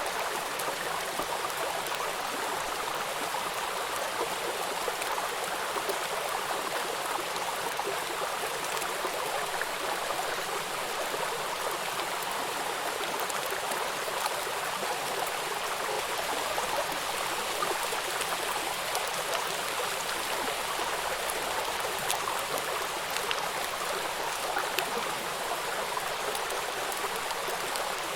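Running water of a stream: a steady, even rush with small splashes and drips through it.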